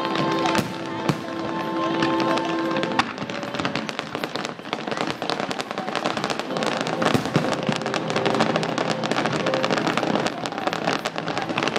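Aerial fireworks bursting and crackling in a dense, rapid run of sharp pops. Music plays under them for the first three seconds or so.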